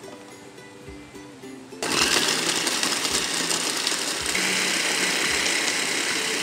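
Electric mini food chopper running, its blade chopping red bell pepper. It starts abruptly about two seconds in, after a light ukulele-style music bed.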